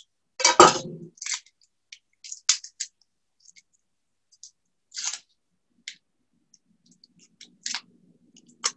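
Chef's knife knocking and clicking on a cutting board while the ends of a shallot are trimmed, a few short separate strokes, the loudest a thud about half a second in.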